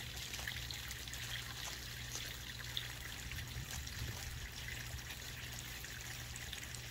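Water trickling steadily, with small light splashes, as goslings and a runner duckling dabble and paddle in a shallow pool, over a low steady hum.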